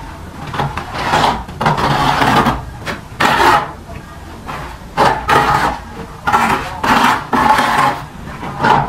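Steel plastering trowel scraping cement mortar out of a tub and spreading it on a brick wall: a string of short scraping strokes with brief pauses between them.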